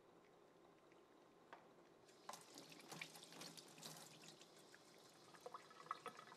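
Kitchen tap turned on about two seconds in, water running into a stainless steel sink and splashing over hands rinsing a squid tube, with small spatters and drips; quiet throughout.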